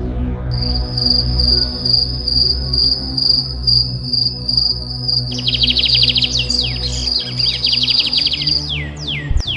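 Ambient background track of insect and bird sounds over a steady low drone. A high, steady insect trill comes in about half a second in. From about five seconds it is joined by fast chirping pulses, and quick falling bird chirps come near the end.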